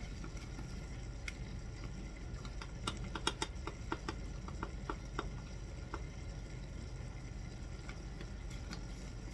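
A quick run of light clicks and taps from a measuring spoon knocking against a spice container and the mixing bowl as a teaspoon of cinnamon is measured out. A few scattered ticks follow, over a low steady hum.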